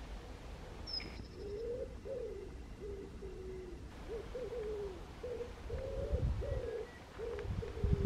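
A pigeon cooing: a run of low, soft coo notes, each about half a second long, starting about a second in and repeating without a break. A low rumble joins near the end.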